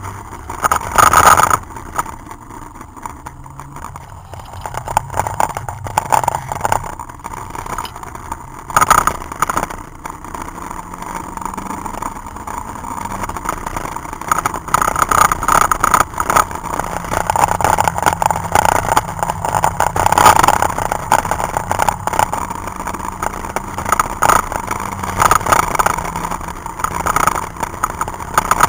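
Citroën Saxo VTS's four-cylinder engine heard from inside the cabin, driven hard around a track. The engine note climbs and grows louder from about ten seconds in as the car accelerates, with short loud bursts about a second in and again near nine seconds.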